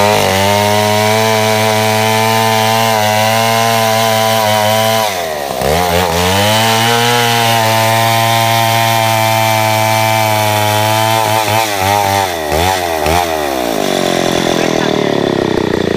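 Stihl 070 two-stroke chainsaw running at full throttle, cutting through a big bengkirai hardwood log. Its revs dip and recover about five seconds in and waver near the end, then fall to a lower, uneven run in the last two seconds as the cut finishes.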